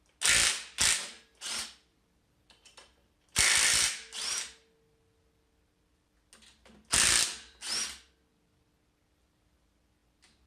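Impact wrench fired in short bursts, loosening the bolts on the engine's bottom end. The bursts come in groups of two or three, and some end in a brief rising whine as the tool spins free.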